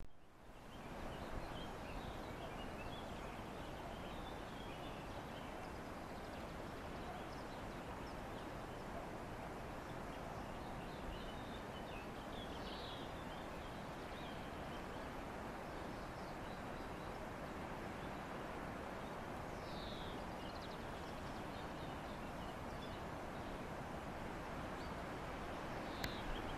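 Steady outdoor background hiss with a few faint, scattered bird calls.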